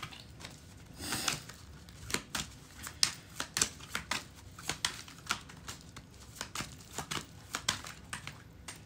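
A tarot deck being shuffled overhand in the hands: irregular soft clicks and slaps of cards, a few a second, with a short rustling rush about a second in.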